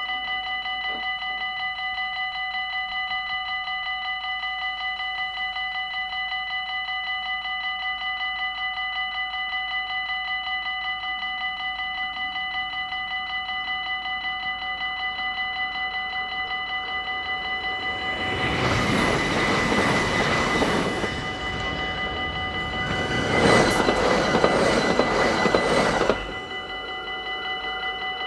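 Dutch level-crossing warning bells ringing rapidly and steadily. About two-thirds of the way in, a train rushes past twice in quick succession, the second passage loudest and cutting off suddenly.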